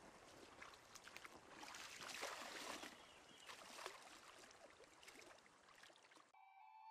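Faint splashing and lapping of shallow river water as a large salmon is held in the current for release, with small irregular splashes. The water sound cuts off suddenly near the end, when music starts.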